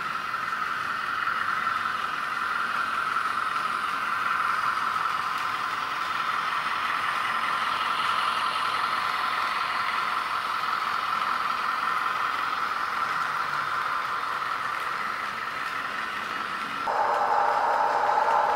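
A model railway's diesel locomotive sound running steadily, with a rattling, clattering running noise. Near the end a louder steady tone sets in.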